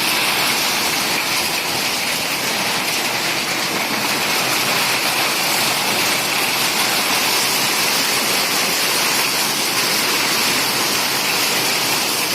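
Heavy rain pouring steadily in a storm, a constant dense hiss.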